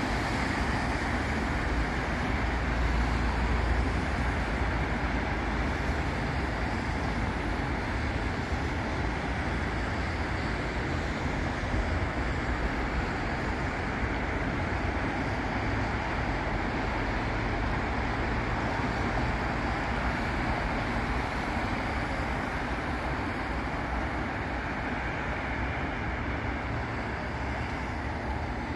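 Steady traffic noise from a busy city avenue: cars and buses passing in a continuous rumble and tyre hiss. The low rumble swells briefly about three seconds in, as a heavier vehicle passes.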